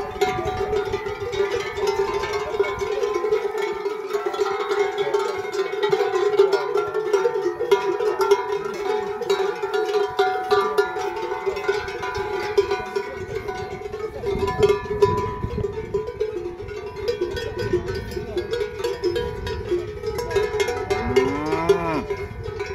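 Cowbells on grazing Salers cows clanking and ringing continuously. Near the end, one short moo rises and falls in pitch.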